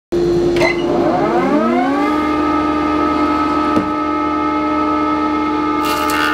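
Felder combination machine's circular saw switched on: the motor and blade wind up over about two seconds into a steady high whine. Near the end there is a brief rasp as the blade begins cutting into the applewood log.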